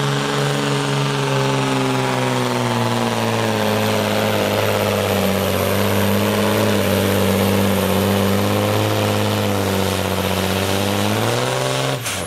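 DAF 95 pulling truck's diesel engine at full power dragging a weight-transfer sled, its note sinking slowly as the sled's load builds, then cutting off suddenly near the end.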